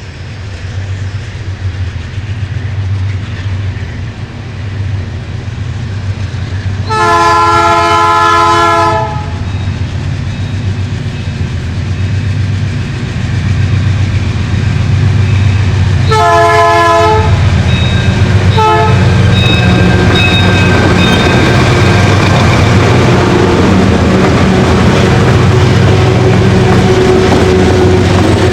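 Diesel freight locomotives working at full throttle up a grade, their engine drone growing louder as they approach. The air horn sounds a two-second blast about seven seconds in, then a shorter blast and a quick toot around sixteen to nineteen seconds, a warning for the level crossing. For the last third the locomotives are loud and close.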